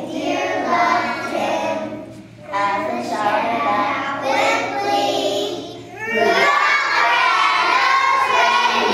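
A group of young children singing together in unison. The singing comes in phrases, with short breaks about two seconds in and six seconds in, and is fuller and louder after the second break.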